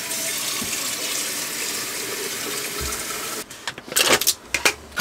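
A sink faucet runs water into a stainless steel percolator pot, filling it, and shuts off about three and a half seconds in. Then come a few sharp metallic clinks and knocks as the percolator pot and its parts are handled.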